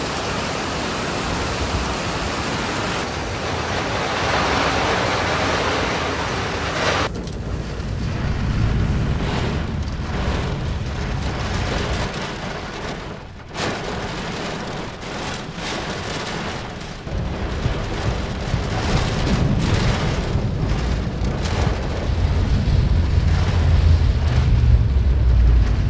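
Heavy typhoon rain pouring with a steady hiss. About seven seconds in it gives way to strong wind, a low rumble in gusts that grows louder near the end.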